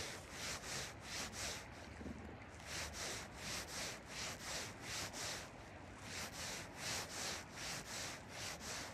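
Fly line being stripped in by hand through the rod guides, each pull a short hissing rub, about two to three a second.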